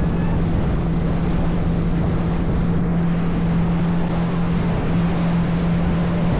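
A boat's engine running at a steady, unchanging drone under way, over a continuous rushing noise.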